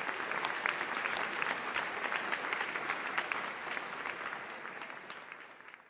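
Audience applauding: dense, many-handed clapping that fades away over the last couple of seconds.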